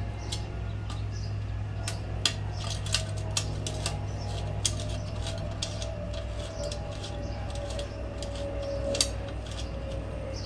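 Irregular light metallic clicks and clinks from hands working the bolts and metal license plate bracket on a motorcycle's tail tidy, over a steady low hum.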